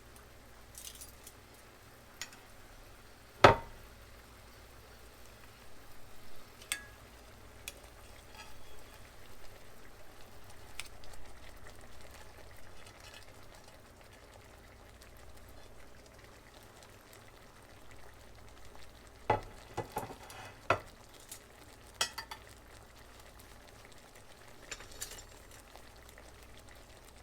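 Chicken breasts being set back into a skillet of simmering butter-lemon pan sauce: a low sizzle, with scattered sharp clinks and knocks of a utensil against the pan. The loudest knock comes about three and a half seconds in, and a few more come close together near the two-thirds mark.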